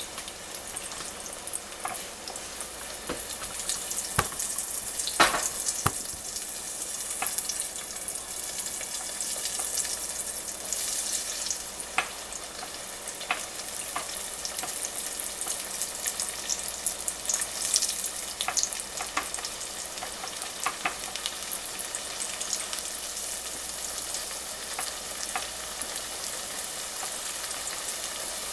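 Flour-dredged squash slices frying in hot grease: a steady sizzle with scattered crackles and pops, and a few sharp clicks about four to six seconds in.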